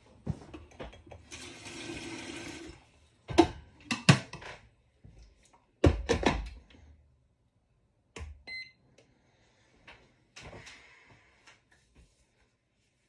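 Kitchen handling sounds: a short rush of running water lasting about a second and a half, then a string of sharp knocks and clunks, and a single ringing clink about eight seconds in.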